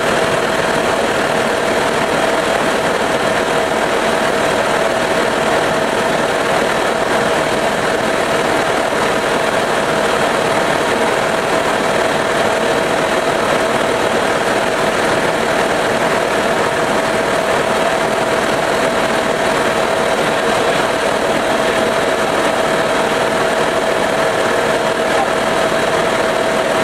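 Tour helicopter in flight: its turbine engine and rotors make a steady drone with a constant hum running through it.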